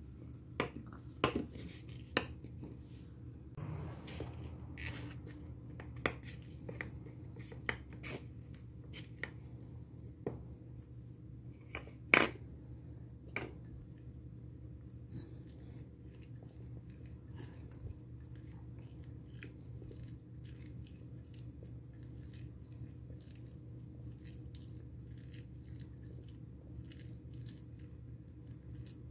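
Light clinks and taps of tiny glass and metal bowls being handled, with soft crackling and scraping as fingers mix grated cassava and chopped onion. One sharp clink about twelve seconds in is the loudest. A steady low hum runs underneath.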